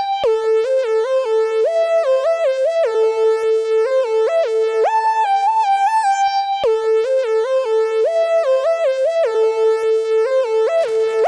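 Synthesizer sequence: a bright, buzzy tone stepping quickly between notes in a repeating melodic pattern, run through an SSF Vortices modular mixer patched for stereo feedback. A brief crackle near the end.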